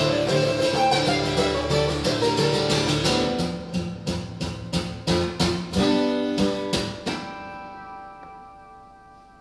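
Acoustic guitar played solo: fast dense strumming, then a string of separate, sharply struck chords, the last of which, about seven seconds in, rings on and slowly fades away.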